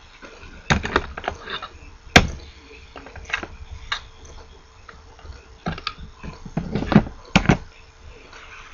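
Irregular clicks and knocks of hands handling tools and parts on a workbench while a small circuit board kit is assembled, about a dozen over several seconds, the loudest near the middle and near the end.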